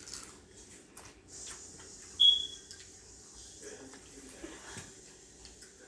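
Faint clicks and rustles from eating at a table, with one short high-pitched squeak about two seconds in.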